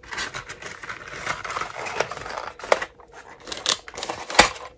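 Rustling and handling of a cardboard box of metal prong fastener bases as it is closed and moved, with a few sharp clicks, the loudest near the end.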